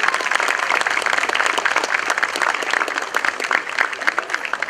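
Audience applauding: dense clapping from many hands that begins to thin out near the end.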